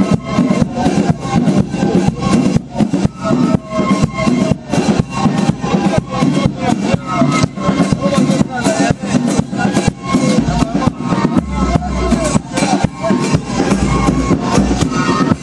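Music with a steady drum beat; a deep bass comes in about ten seconds in.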